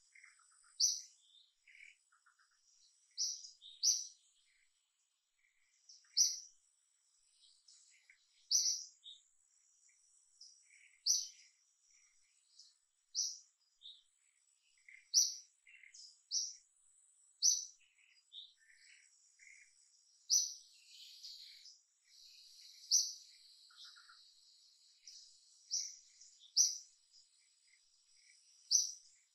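Birds chirping: short, sharp high-pitched notes every second or two, with a faint steady high insect drone underneath.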